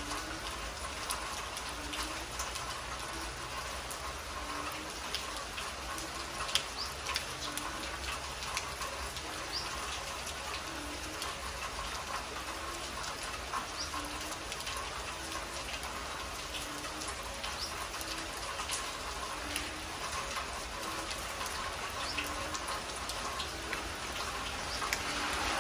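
Heavy rain falling steadily on a concrete yard and trees, an even hiss with scattered close drips. Under it, a faint low animal call repeats about once a second for most of the stretch.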